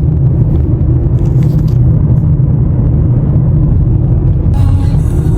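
Steady low rumble of a car driving, heard from inside the cabin. Music comes in near the end.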